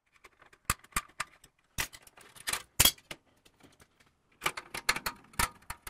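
Front screws being fitted and turned by hand with a screwdriver into tapped holes in a metal cart's shelf brace: a series of sharp metal clicks and clinks in irregular clusters, with a pause in the middle.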